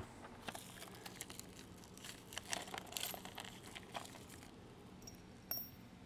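Faint handling noise: light, scattered clicks and rustling, busiest around the middle.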